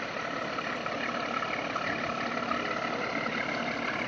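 Motorboat engine running steadily while the boat is under way, with the rush of water and wind mixed in.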